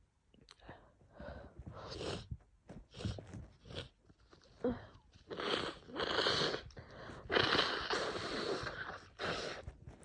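Wet sniffling through a congested nose, a cold together with allergies, with short sniffs at first, then two long nose blows into a tissue about halfway through.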